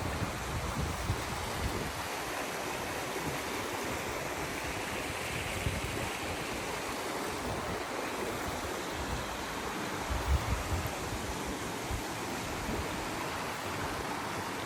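Steady rush of flowing water from a creek or waterfall, with a few brief low buffets of wind on the microphone, the strongest about ten seconds in.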